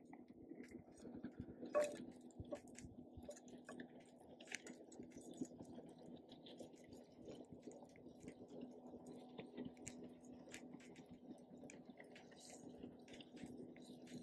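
Shrimp going one by one into a hot skillet over a wood campfire, giving a faint, irregular sizzling and crackling, the sound of the pan being hot enough to sear.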